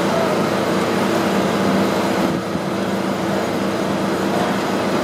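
High-reach demolition excavator at work: a steady diesel engine hum under an even, rough machinery din, dipping briefly about halfway through.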